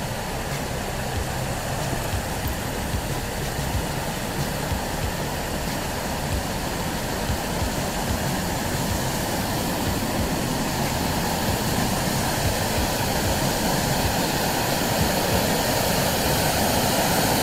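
Steady rush of falling and churning water from a creek waterfall, growing gradually louder toward the end.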